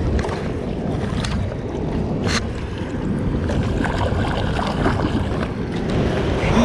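Water splashing at the side of a jon boat as a striped bass is let go by hand, with a couple of sharper splashes, over steady wind noise on the microphone.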